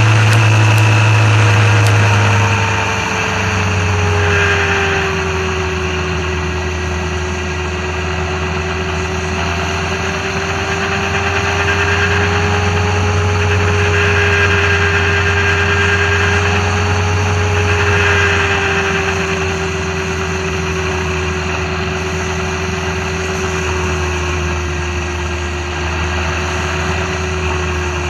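Motorcycle engine running at a steady cruising speed, heard from a camera mounted on the bike next to the fairing, its pitch drifting gently up and down with the throttle. The level dips slightly a few seconds in, as the throttle eases.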